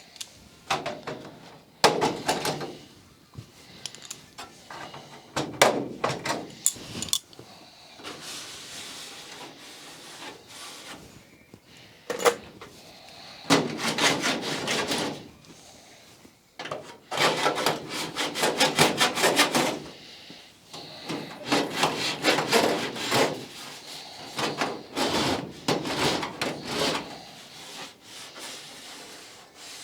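Hand work on an aluminium wing-tip skin: repeated bursts of scraping and rubbing strokes, with a few sharp knocks in between as the sheet is handled.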